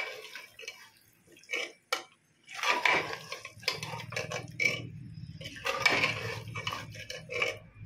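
Steel ladle scraping and clinking against the sides of an aluminium pressure cooker while stirring chicken pieces into thick masala, in irregular strokes. A low steady hum comes in about halfway through.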